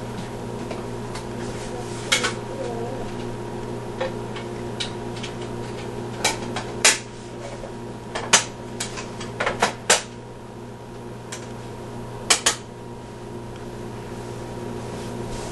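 Small metal articles being set down one by one on a tile floor: about a dozen sharp clinks and clacks at irregular intervals, over a steady low hum.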